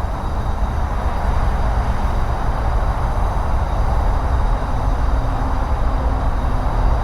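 Diesel locomotives of a Norfolk Southern freight train running, a steady heavy low rumble with a broad hiss over it.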